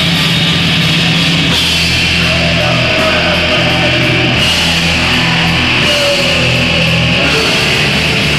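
Live black metal band playing loud, with distorted guitars and sustained low notes that shift every second or so.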